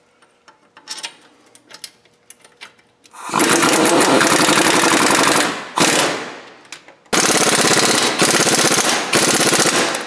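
Impact wrench hammering in the hub bearing's mounting bolts through the steering knuckle. It runs in four bursts: a long one of about two seconds starting about three seconds in, a brief one, then two more near the end. The bolts are freshly coated with Loctite and are to be torqued to spec afterwards.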